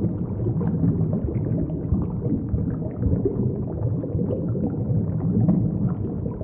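Underwater bubbling and gurgling: a steady, low, muffled churn of rising bubbles.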